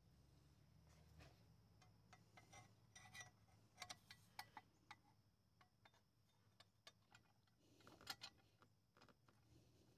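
Faint metallic clicks and clinks of a steel plate being fitted over the exhaust studs on an engine's cylinder head, most of them in the middle and the loudest near the end.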